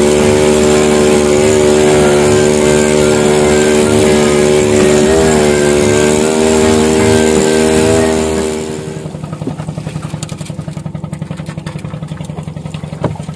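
Skiff's engine running at speed, its pitch wavering a couple of times, over the hiss of wind and spray. About 8.5 seconds in it is throttled back to idle, a quieter fast, even putter, as the boat comes off the plane and stops.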